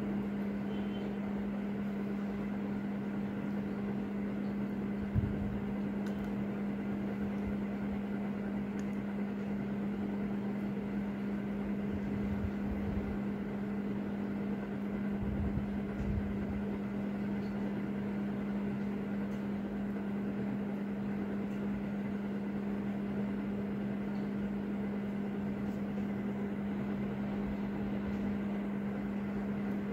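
A steady low hum over a faint hiss, like a small fan or motor running. A few faint ticks of tweezers on the metal watch movement come about five seconds in and again around twelve and sixteen seconds.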